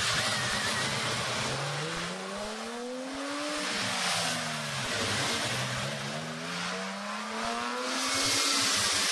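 Ferrari 250 GTO V12 engine revving as the car accelerates away, its pitch climbing, dropping back about three and a half seconds in, then climbing again for several seconds.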